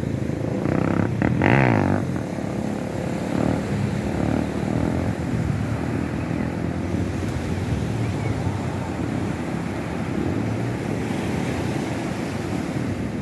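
Steady rumble of sea surf with wind buffeting the microphone.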